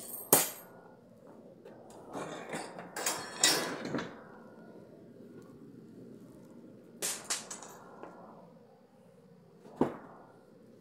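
Sharp knocks and clicks with a short burst of clattering and rustling about two to four seconds in, then two clicks and one more sharp knock near the end, like objects being handled and set down.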